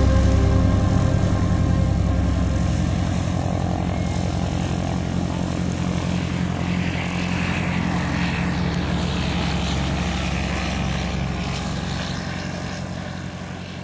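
Piston engine and propeller of a single-engine Piper light aircraft running steadily at taxi power as it rolls past and away, growing fainter and fading out near the end.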